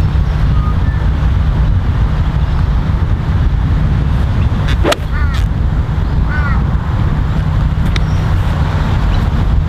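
Strong wind buffeting the microphone with a steady low rumble. About five seconds in, a single sharp click: a golf iron striking the ball. Shortly after come a couple of brief high chirps.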